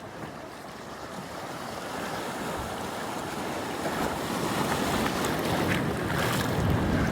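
Wind buffeting the microphone over the wash of sea water and waves, growing louder over the second half.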